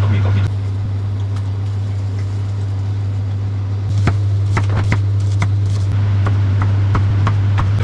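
A loud, steady low hum with scattered clicks and clinks of kitchen utensils and dishes during cooking. The clicks come more often from about four seconds in.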